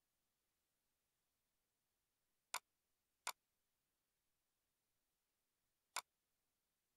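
Near silence broken by three short, sharp clicks: two close together about two and a half seconds in, and a third about three seconds later.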